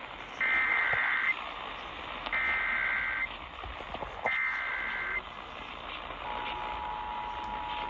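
Emergency Alert System activation: three one-second bursts of the SAME header's screechy data tones, spaced about two seconds apart, then about six seconds in the steady two-tone EAS attention signal begins. The tones herald a tornado warning.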